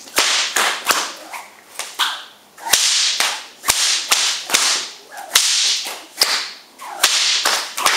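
Exo Whips Night Train whip cracked again and again, about two sharp cracks a second, with the swish of the whip through the air between cracks; each crack echoes briefly.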